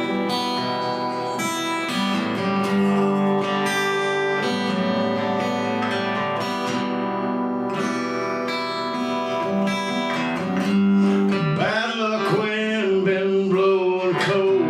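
Acoustic guitar playing a song intro, sustained chords ringing; a singing voice comes in about three-quarters of the way through.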